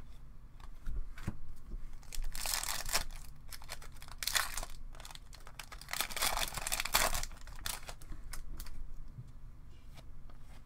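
Hockey card pack wrapper crinkling and tearing open, in two noisy rustling bursts, the second about four seconds after the first, with light clicks of cards being handled in between.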